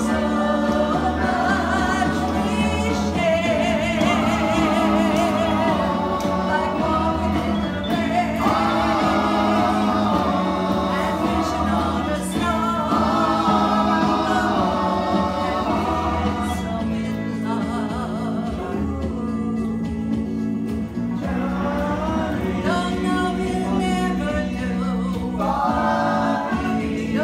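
A group of men and a woman singing a song together in harmony, without a break.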